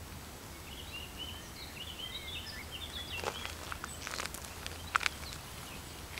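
Shoes shifting and crunching on a gravel path, with a few sharp crunches about three, four and five seconds in, the last the loudest. A small bird chirps a quick run of notes through the first half.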